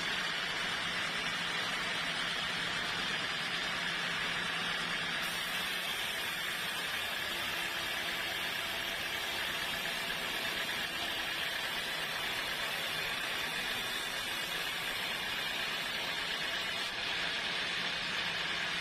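Sawmill machinery running steadily: an even, unbroken hiss-like noise. An extra layer of very high hiss comes in about five seconds in and drops out a couple of seconds before the end.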